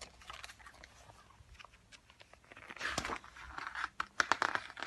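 Paper rustling and crinkling as a picture book's pages are handled and turned, in a couple of short crackly bursts.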